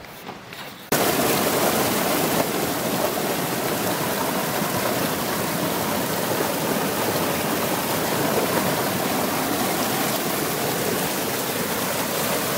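Mountain stream pouring over a small rocky cascade, a steady rush of falling water that starts abruptly about a second in.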